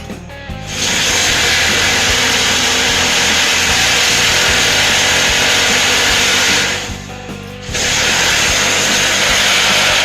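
SSh-4 cinder-block machine's vibrator running with a loud, steady noise. It cuts out for about a second after six seconds in, then starts again.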